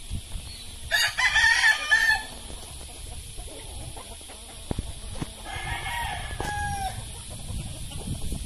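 Rooster crowing: one loud crow about a second in, then a fainter second call a few seconds later.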